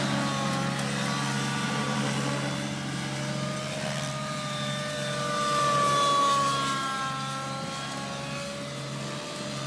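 Align T-Rex 700 radio-controlled helicopter flying passes: a whine from its motor and rotors that shifts up and down in pitch as it moves, loudest about six seconds in, over a steady low hum.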